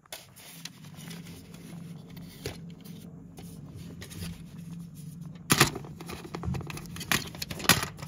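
Plastic casing of a smoke alarm being handled: scattered scrapes and clicks, with louder clatters a little past halfway and again near the end, over a faint steady low hum.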